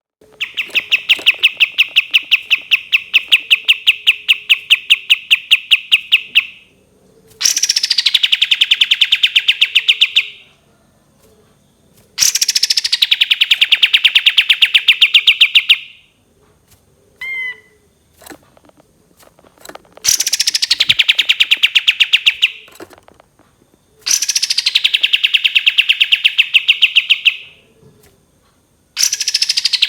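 Kapas tembak bulbul singing its 'tembakan' song: long rapid-fire trills of about ten sharp notes a second, each burst running several seconds, with short pauses between. The first trill is the longest.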